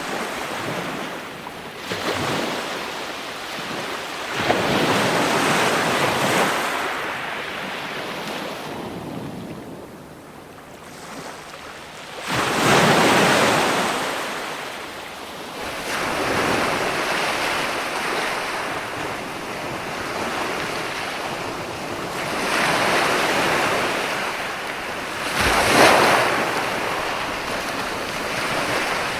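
Ocean surf: waves breaking and washing in, rising and falling in surges every few seconds. The loudest breaks come about halfway through and near the end.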